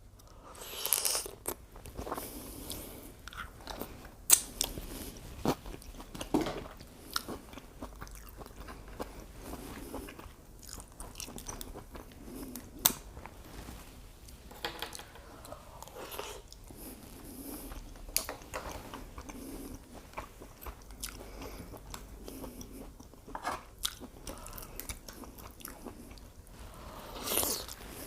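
A person eating shrimp, mussels and fettuccine close to the microphone: irregular chewing and biting, with sharp clicks here and there.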